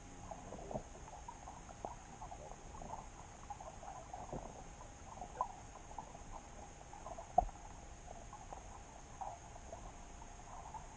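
Muffled underwater ambience picked up by a submerged camera: a faint steady hum with scattered soft clicks and ticks, and one sharper click about seven seconds in.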